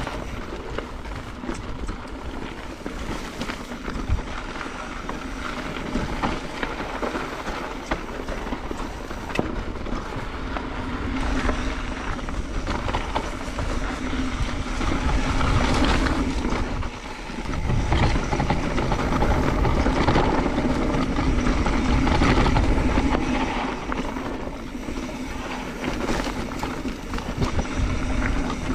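Mountain bike ridden over a rough dirt trail: continuous tyre rumble with the bike rattling and clattering over rocks and roots, louder for several seconds past the middle.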